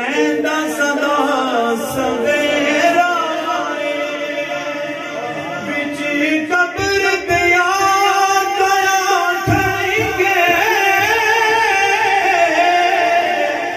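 A man singing a devotional chant into a microphone, with long held, wavering notes.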